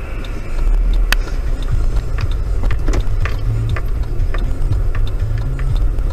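Steady low rumble of a car's engine and tyres heard from inside the cabin, with scattered light clicks and knocks at irregular intervals.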